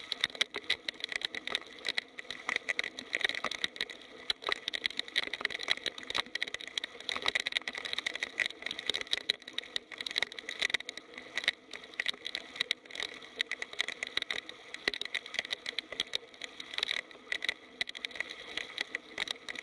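Heavy rain falling: a steady dense hiss broken by countless irregular sharp drop impacts.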